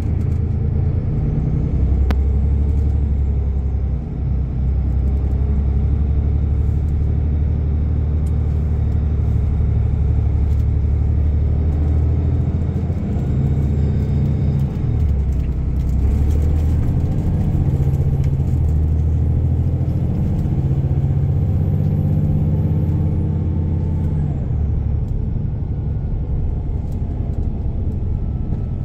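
VDL Bova Futura coach under way, heard from inside the passenger cabin: a steady low engine drone with road rumble. The engine note shifts in pitch several times after the midpoint as the engine speed changes.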